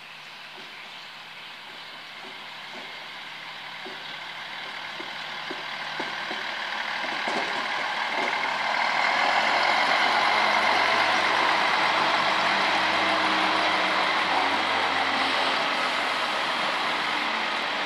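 Diesel-hauled passenger train rolling slowly into a station. Wheels click over rail joints, growing steadily louder. A steady diesel engine hum joins in about halfway through as the coaches pass close by.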